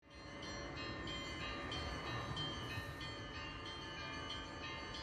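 Church bells ringing: small high bells struck in quick succession, about three strikes a second, over steady ringing lower tones.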